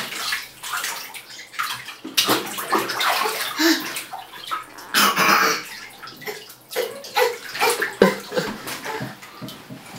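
A toddler splashing bathwater with his hands in a tub: irregular splashes and sloshes.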